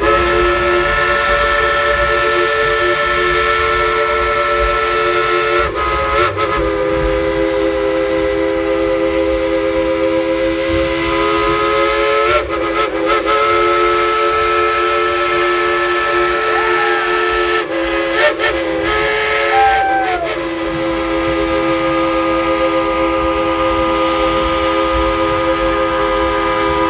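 Coal-fired steam locomotive's chime whistle blown in long held blasts, a chord of several steady tones, broken by short gaps about 6, 12, 18 and 20 seconds in.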